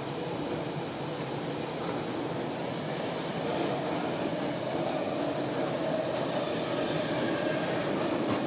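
Interior noise of an Osaka Midosuji Line 10 series subway car running between stations: a steady rumble of wheels and running gear with a faint whine, growing slightly louder.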